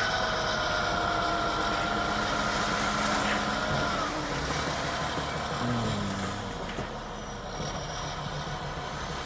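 Dump truck's diesel engine running, with a steady high whine that fades out about four seconds in; the engine note drops about six seconds in.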